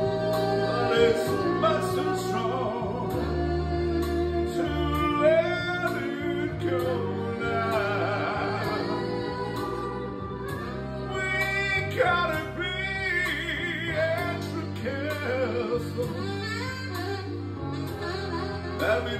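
A solo voice singing a slow song with wide vibrato over instrumental backing with a steady bass line.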